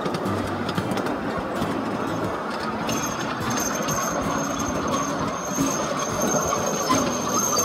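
Ride-on miniature park train running along its track, heard from aboard: a steady rumble and rattle of the wheels on the rails, with a thin high steady tone joining about three seconds in.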